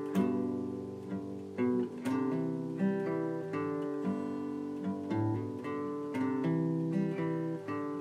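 Background music on acoustic guitar: strummed chords with picked notes between them, in a steady rhythm.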